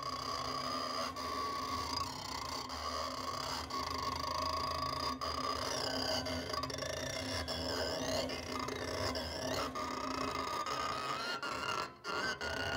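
A bow drawn across wires and springs on a table of amplified found objects, giving sustained scraping, singing tones that waver and glide in pitch partway through.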